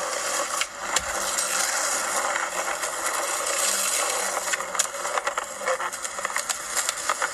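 Skateboard wheels rolling on rough pavement: a steady rushing noise, with sharp clicks and clacks that come more often in the second half.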